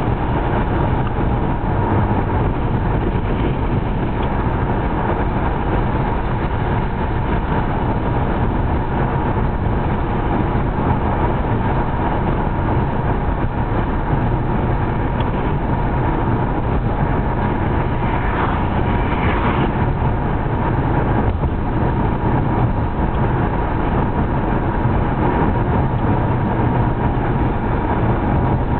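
Steady road noise inside a moving car's cabin: engine and tyres running at cruising speed.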